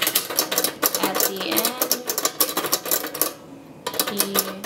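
Typewriter keys clacking in quick, irregular strokes, which stop for about half a second near the end and then start again.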